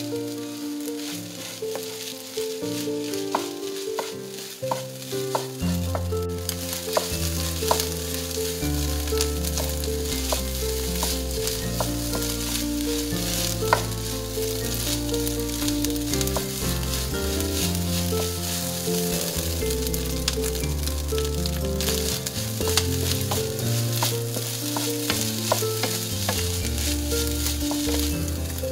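Egg fried rice with shrimp sizzling in a nonstick frying pan as it is stirred and tossed with a wooden spatula, with many light taps and scrapes of the spatula on the pan. The sizzle grows louder about six seconds in.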